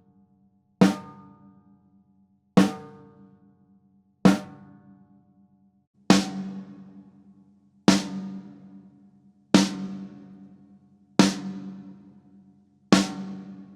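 Snare drum hit with single strokes for a sound check: eight even hits, about one every second and three-quarters, each left to ring out. The last five ring longer and deeper than the first three.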